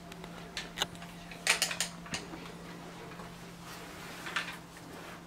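Scattered light clicks and knocks, with a quick cluster about a second and a half in, over a steady low hum.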